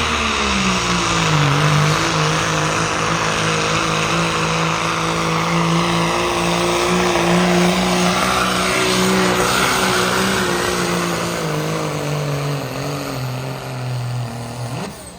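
Pulling-competition engine running hard under load down the track. Its note drops in pitch about a second in, holds steady, then sags again and fades near the end.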